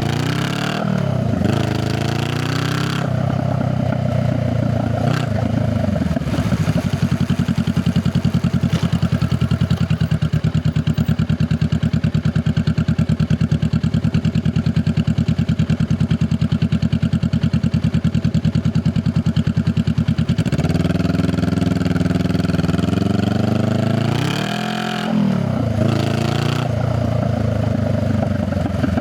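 Honda Rebel 500's parallel-twin engine heard through its exhaust from the rider's seat. It revs up across a gear change in the first few seconds, then runs at an even, steady beat for about fifteen seconds. Near the end it revs up again twice with a drop between.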